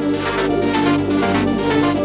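Electronic background music: sustained synth tones over a fast, even pulse.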